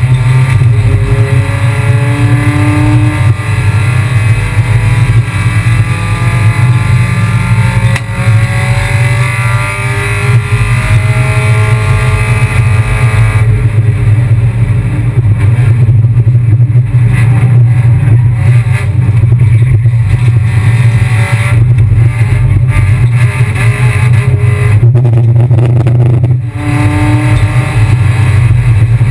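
Kia Picanto race car's engine running hard under a steady, loud low drone, its revs climbing through the first dozen seconds and again after a short dip near the end.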